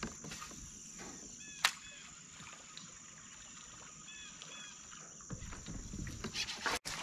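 A bird calling in short repeated phrases of a few quick notes, over a steady high-pitched hum, with one sharp click about one and a half seconds in.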